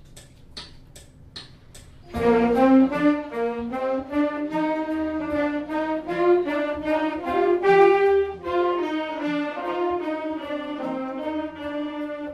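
Metronome clicking about two and a half times a second, then about two seconds in a group of student saxophones comes in together, playing a line of notes that steps up and down in time with the clicks.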